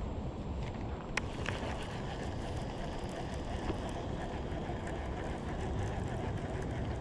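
Wind buffeting the microphone in a steady low rumble, with two sharp clicks about a second in.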